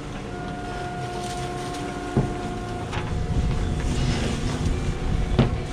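Fishing boat's engine running steadily on deck, with a thin steady whine over it for the first three seconds or so. A few sharp knocks come through, about two, three and five seconds in.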